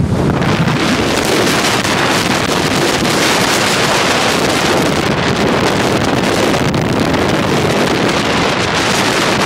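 Hurricane Sandy's storm wind buffeting the microphone in a loud, steady rush, with waves breaking on a rocky shore beneath it.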